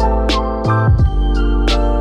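Music with a slow beat: deep bass notes that change about once a second under held keyboard chords, with a couple of sharp percussion hits.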